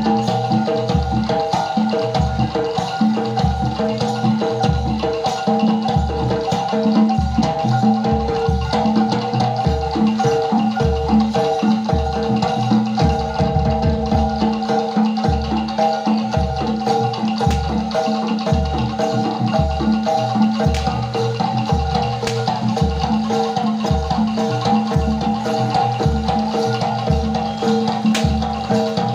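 Gamelan music accompanying a jaranan dance: bronze metallophones and gong-chimes ring in a repeating pattern over a steady low drum beat about once a second.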